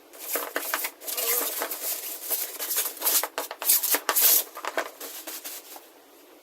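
Packaging being handled while a coffee machine is unboxed: a run of rustling and scraping for about four seconds, then it goes quiet near the end.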